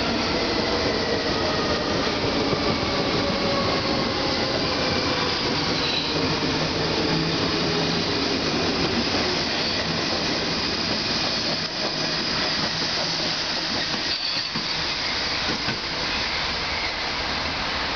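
Munich U-Bahn A-type train pulling out and running past close by: a whine of several tones that slowly slide down in pitch over dense wheel-on-rail rumble and hiss. After about ten seconds the whine is gone and only a steady rushing noise remains.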